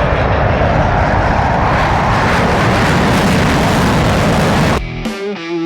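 Airplane engine noise, loud and steady, cut off sharply near the end by rock music with distorted electric guitar.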